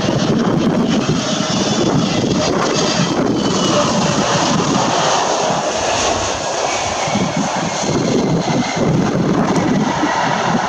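Jet engines of an Airbus A320-family airliner landing and rolling out, with a faint whine that falls in pitch in the first few seconds. Gusting wind rumbles on the microphone throughout.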